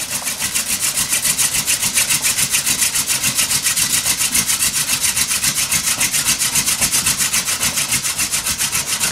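Horseweed hand-drill spindle grinding into a wooden hearthboard, a steady rhythmic rasp that pulses several times a second with each back-and-forth twist between the palms. This is the friction stage of a friction fire, with the spindle under pressure and hot wood dust building in the notch toward a coal.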